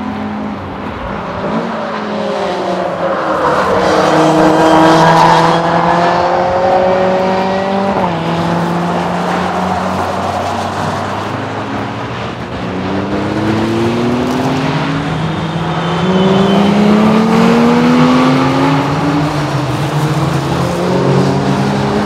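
Cars on a race circuit during a track session passing one after another, their engines revving up and dropping in pitch at gear changes. The loudest passes come about five and seventeen seconds in.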